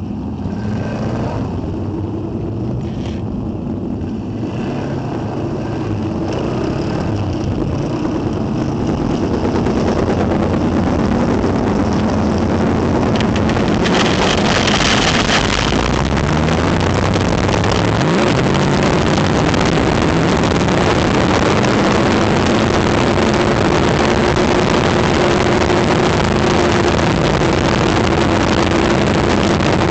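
Onboard sound of a small open-wheel dirt-track race car's engine, running quieter at first, then growing louder from about six seconds in as the car gets up to speed and holding a steady high-speed drone with a rushing noise over it.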